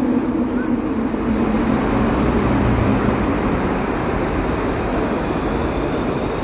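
Metro train running along the station platform: a steady rumble and rolling noise, with a hum that fades out in the first second.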